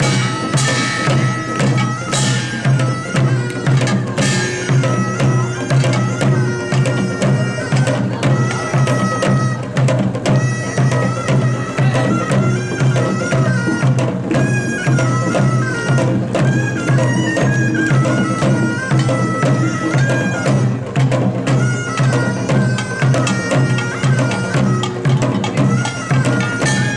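Korean nongak band music: a nasal double-reed taepyeongso shawm playing a melody over a steady beat of drums and gongs.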